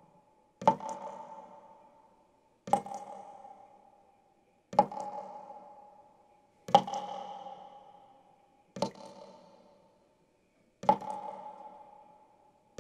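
A metal water pipe struck in a steady beat, about once every two seconds, six times. Each hit rings with a clear tone that dies away before the next.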